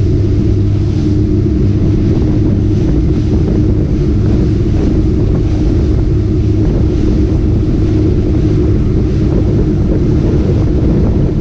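Motorboat running steadily on open water, its engine a constant hum, with wind buffeting the microphone.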